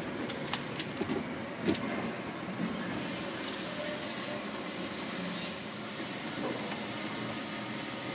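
Water jets of a truck wash spraying a marble truck, a steady hiss heard from inside the cab over the truck's running engine.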